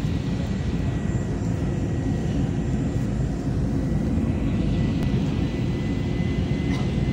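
Steady cabin noise of an airliner in flight, heard inside the cabin at a window seat: an even low rumbling hum with a faint thin high tone above it.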